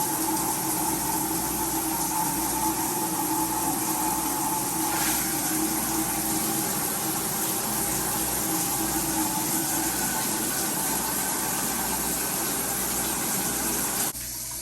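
12-volt electric shower drain pump in a boat's bilge running steadily with a hum, switched on by its flow-sensor relay, then cutting off suddenly near the end.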